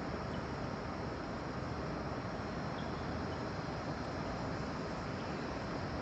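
Steady outdoor rushing noise with a few faint high chirps.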